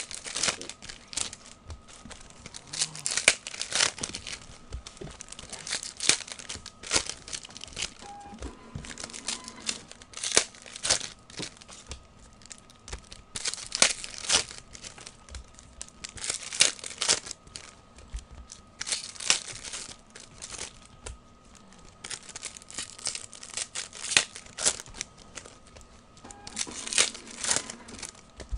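O-Pee-Chee hockey card pack wrappers being torn open and crinkled by hand, in irregular bursts of rustling and tearing.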